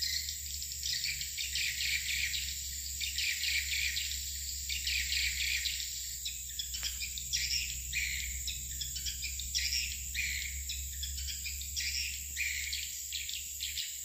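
Swiftlets twittering in a dense, continuous chorus of short high chirps, over a steady high insect-like whine and a low hum.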